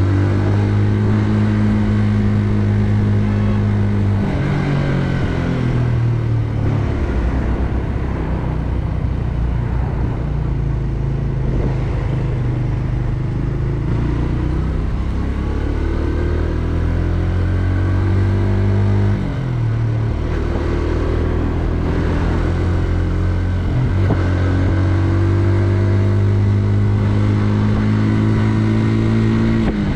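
Benelli Leoncino 125's single-cylinder engine running as the bike is ridden. Its pitch steps down twice about five seconds in, climbs slowly, drops briefly at about nineteen seconds, then holds steady and high.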